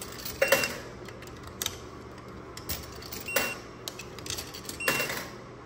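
Clicking and clattering from a laundromat machine, with three short high electronic beeps, each beep arriving with a brief rattling burst.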